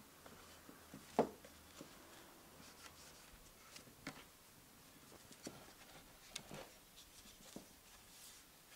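Cloth rag rubbing paste wax into a wooden chair's backrest, faint, with a few light knocks against the frame, the sharpest about a second in.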